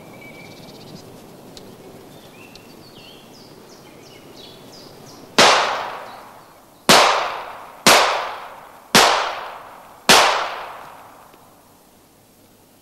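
Five pistol shots, the first about five seconds in and the rest about a second apart, each with a long echo off the forest. Faint birdsong before the shots.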